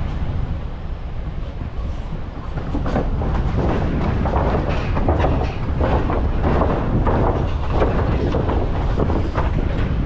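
Pickup truck driving over a rough road, heard from its open back: a steady engine and road rumble with irregular rattling and knocking of the truck bed, thickest from about three seconds in.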